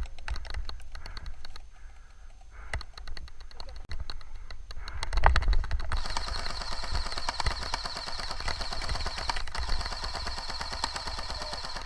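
Airsoft guns firing: strings of sharp clicks and snaps. About halfway through, a steady dense hiss joins them.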